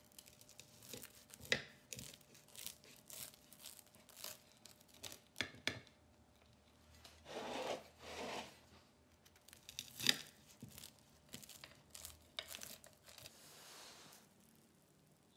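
Chef's knife cutting through the crisp crust of a baked potato cake on a plate: irregular crunching and scraping strokes, with a couple of sharp clicks about a second and a half and ten seconds in.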